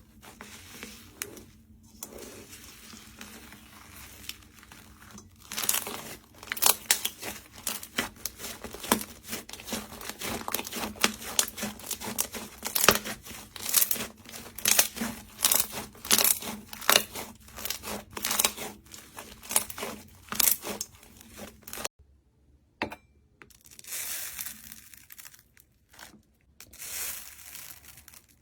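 Crunchy slime being squeezed and pressed, giving rapid crackling pops. The crackling is light at first, gets dense and loud from about five seconds in, stops abruptly around three quarters of the way through, then comes back sparser.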